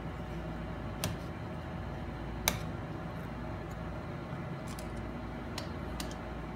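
Sharp little clicks and taps of small tools and parts being handled on an opened MacBook Pro and the desk beside it, about five in all, the loudest about two and a half seconds in, over a steady low hum.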